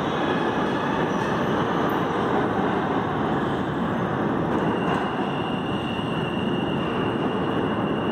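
New York City subway F train pulling out of an underground station, its steel wheels rumbling on the rails as the last cars pass and the train runs off into the tunnel. A steady high whine comes in about halfway through.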